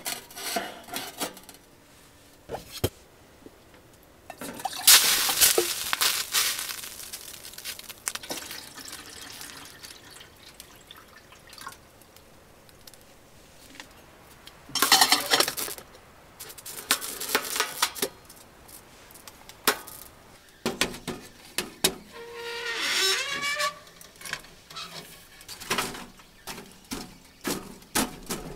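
Water being poured and splashed, with pots and utensils clattering in between, in several separate bursts.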